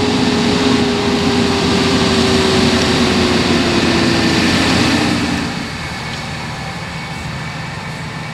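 Large farm tractor's diesel engine running as it tows a folded disc drill past and then moves off. The engine note sags slightly, and the sound drops off about five and a half seconds in as the tractor pulls away.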